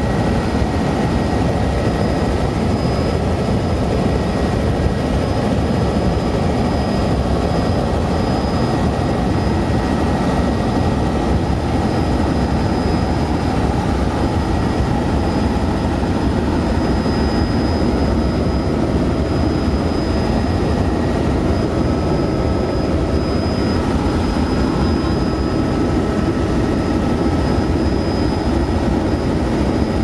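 Helicopter cabin noise in flight: a steady, loud drone of rotor and engine with thin, constant high whines over it.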